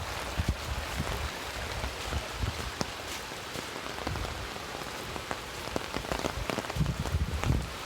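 Water splashing and pattering, a steady hiss full of small drips and splashes. Low gusts of wind buffet the microphone at the start and again near the end.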